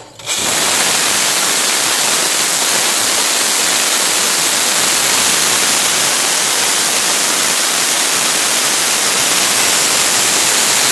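Small PMMA/gaseous-oxygen hybrid rocket motor firing on a test stand: a loud, steady rushing hiss of the burn, coming up to full level within the first half second after ignition and then holding even.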